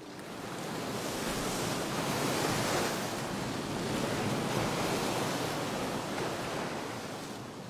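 Rough open-sea waves churning and breaking in a strong wind: a rushing noise that builds over the first second or two, then swells and eases.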